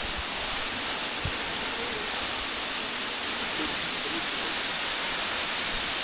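Waterfall: a steady rush of falling water, an even hiss.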